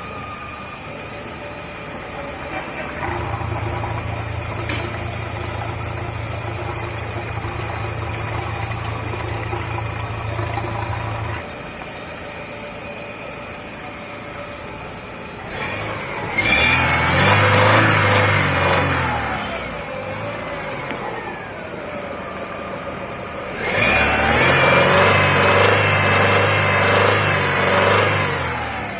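Chevrolet Optra 1.6-litre four-cylinder engine running, with a steady hum at first and then revved up and let back down twice.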